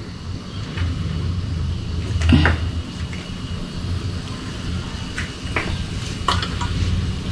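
A few short knocks and clicks from bacon-wrapped enoki bundles being set into a wok of shallow oil, over a steady low rumble.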